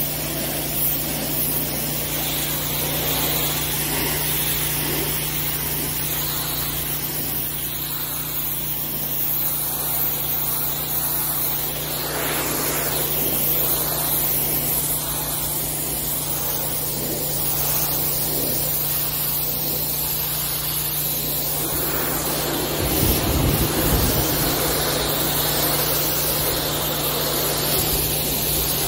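Pressure washer running with a steady hum while its wand jet hisses against a concrete step. The jet blasts the surface continuously, with a short low rumble about 23 seconds in.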